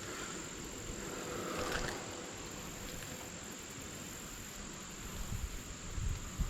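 Crickets trilling in a steady, high chorus, with low uneven rumbles and bumps near the end.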